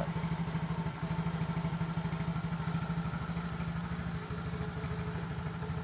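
Yamaha Mio GT scooter's fuel-injected single-cylinder four-stroke engine idling steadily with an even pulse. It is running normally again, its compression restored after the leaking exhaust valve was lapped.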